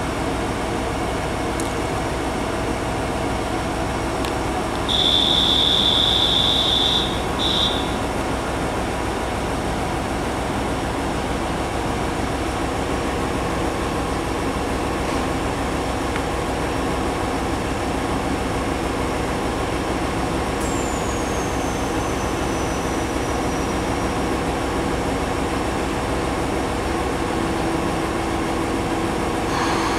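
GV-E400 diesel-electric railcar standing with its diesel engine idling, a steady hum. About five seconds in, a high-pitched buzzer sounds steadily for about three seconds, typical of the warning before departure. Later a faint high whine falls in pitch.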